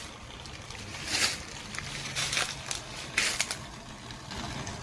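Condensed water pumped out of a portable air conditioner's drain hose, spurting and splashing into a pan in irregular gushes over the pump's faint steady hum.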